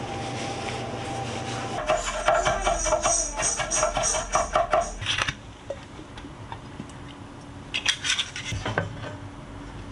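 Chef's knife mincing green onions on a wooden cutting board: a rapid run of knocks, about five a second, lasting some three seconds, after a steady hum. A brief clatter of knocks comes near the end.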